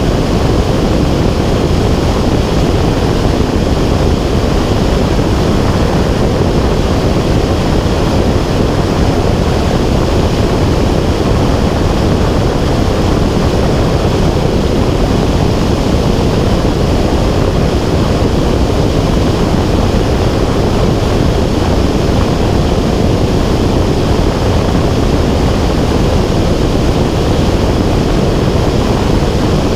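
Steady, loud, low rushing noise of flight picked up by a camera carried aloft on a small aircraft, unbroken and unchanging throughout.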